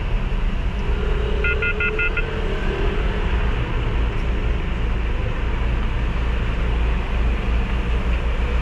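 Steady low mechanical hum, with a quick run of four short high-pitched beeps about a second and a half in.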